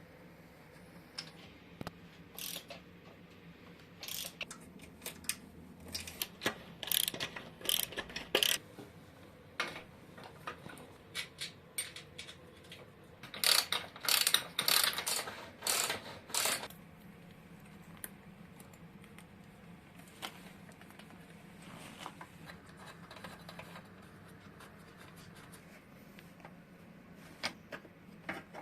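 Hand tools working on motorcycle parts: scattered sharp metallic clicks and clacks, with two busier spells of louder ones, about a quarter of the way in and again around the middle.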